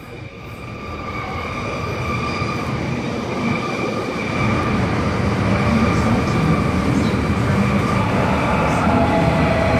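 Sydney Metro Alstom Metropolis train running in close past, getting steadily louder, with steady high-pitched tones over its running noise; a lower tone joins about eight seconds in.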